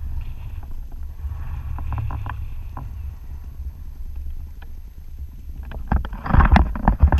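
Wind buffeting an action camera's microphone, a steady low rumble. About six seconds in, loud irregular knocks and scraping close to the microphone take over.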